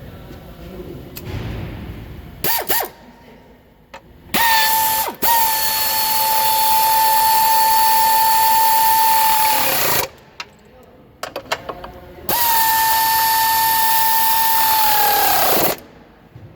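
A hand-held power tool run in two long bursts, each a steady high whine with a hiss that sags in pitch as the tool winds down. Short blips and a few clicks fall between the bursts.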